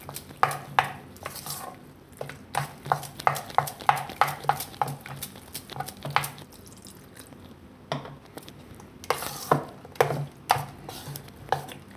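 Spoon stirring a thick semolina-and-yogurt dosa batter in a stainless steel bowl, with quick irregular clicks and scrapes of the spoon against the bowl. The stirring eases off briefly a little past the middle. Water is being worked into the batter.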